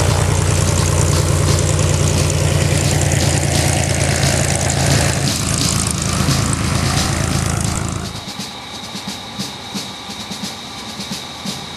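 Staudacher S600 aerobatic plane's piston engine and propeller running loud and steady as it taxis on grass. About eight seconds in the sound drops abruptly to a quieter, more distant engine with an uneven pulsing.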